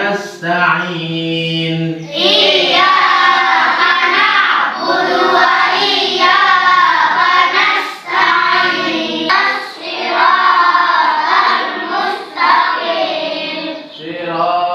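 A man chanting a line of Quranic recitation for about two seconds, then a group of young girls reciting the Quran together in a melodic chant, in phrases of two to three seconds with short breaks between them.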